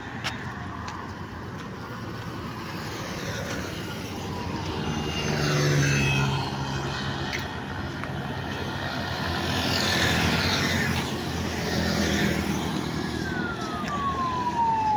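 Road traffic on a wide multi-lane highway, cars and motorcycles going by, with louder pass-bys about six and ten seconds in. Near the end an ambulance siren starts, one long falling wail.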